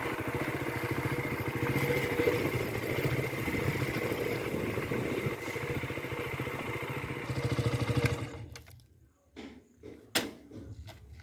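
Diesel engine of heavy machinery running steadily with a rapid even pulse, cutting off abruptly about eight seconds in. After it come a few faint knocks and one sharp knock.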